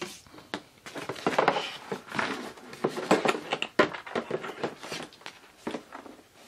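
A model airplane wing and its mechanical retract gear being handled and turned over on a table: a string of irregular knocks, taps and scrapes.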